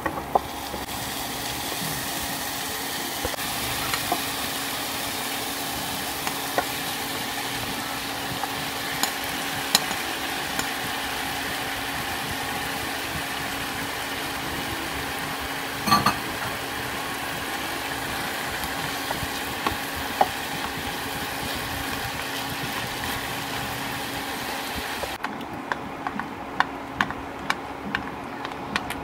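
Pork trotter pieces sizzling in hot oil in a frying pan with onions, with scattered clicks and scrapes of a spatula stirring them. About 25 seconds in the sizzling drops away, leaving quicker small clicks and taps.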